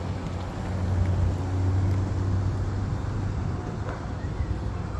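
A vehicle engine running, a low steady hum that swells about a second in and eases off after two and a half seconds.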